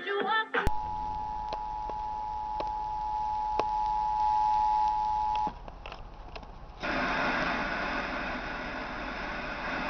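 Emergency Alert System attention signal: a steady two-tone beep held for about five seconds that cuts off suddenly, over a low hum. A short jumbled burst comes just before it, and a louder steady hiss follows near the end.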